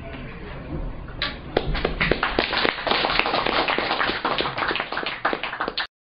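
Audience applauding: many hands clapping, starting about a second in and cutting off suddenly just before the end.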